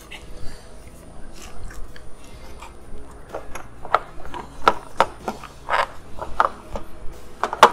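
Molded plastic drive-belt cover being pressed and snapped back onto a self-propelled lawn mower's deck: a string of sharp clicks and knocks with light scraping, coming more often from about three seconds in.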